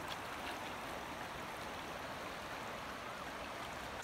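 Steady, even rush of a river's flowing water.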